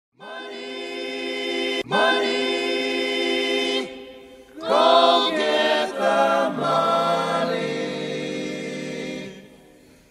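Choir-like sung vocals holding long, sustained notes in a few phrases, the intro of a rap song before any beat or rapping comes in; it fades out near the end.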